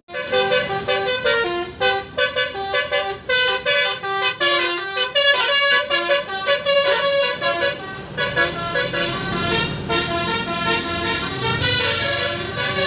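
Bus telolet basuri musical air horn playing a quick tune, stepping through many short notes and then holding longer chord-like notes in the second half.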